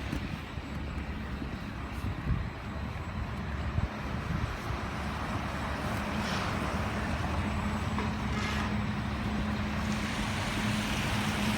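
A motor vehicle engine running steadily with a low hum, under a wash of road noise, with two brief hissing swells partway through.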